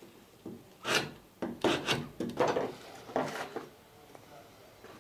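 A wood chisel used as a scraper, rasping in a series of short strokes across the rebate of a wooden boat stem to take out high spots so the plank end will sit flat. The strokes stop after about three and a half seconds.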